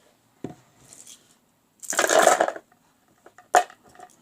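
Small hard junk-drawer items rattling and clattering as they are handled, with a knock about half a second in, a louder half-second rattle around two seconds in and a sharp click near the end.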